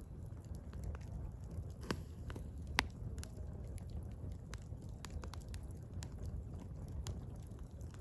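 Burning firewood crackling, with irregular sharp pops, the two loudest about two and three seconds in, over a low steady rumble of the flames.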